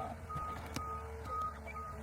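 Heavy machine's reversing alarm beeping steadily, about four short high beeps, over the low hum of its running diesel engine.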